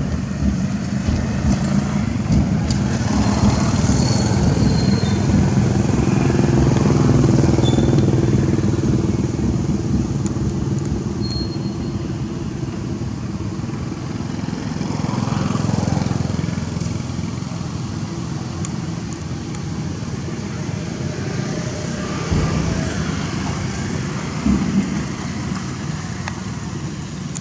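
Motor vehicle engines running close by, with a steady low hum that swells louder for a few seconds early on and again about halfway through, as vehicles pass.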